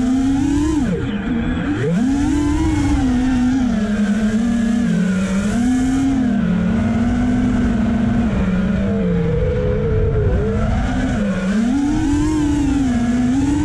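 FPV quadcopter's motors and propellers buzzing, the pitch rising and falling with the throttle. The pitch drops sharply about a second in, as the throttle is cut, and climbs back a moment later.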